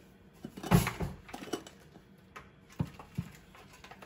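Scattered light knocks and taps of things being handled and set down, with one louder thump about three-quarters of a second in.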